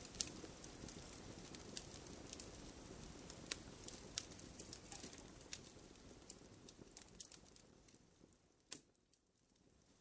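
Log fire crackling in a fireplace: scattered sharp pops and snaps over a soft low rustle of the flames. The sound dies away almost to silence about nine seconds in, just after one last loud pop, then builds back.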